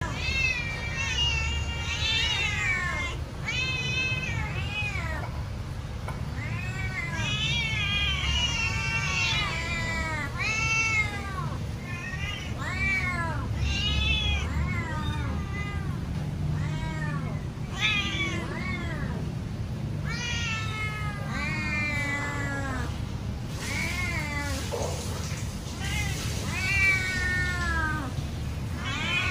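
A domestic cat meowing loudly and repeatedly, one or two meows a second, each call rising and falling in pitch: the cat is demanding food while waiting to be fed.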